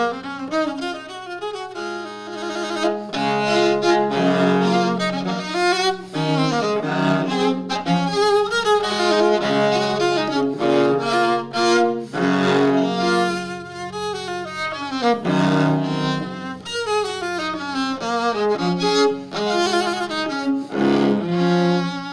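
Violoncello da spalla played with the bow in passages of many notes, runs moving up and down over sustained low bass notes. The instrument was made in 2007 and has just had a full tonal adjustment with a new bridge, soundpost and tailgut.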